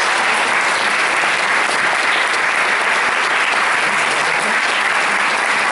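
An audience applauding: many hands clapping in a steady, dense, even round.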